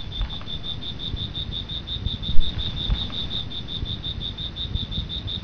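Cricket chirping in a fast, even, high-pitched pulse, over a low rumble with one thump about two and a half seconds in.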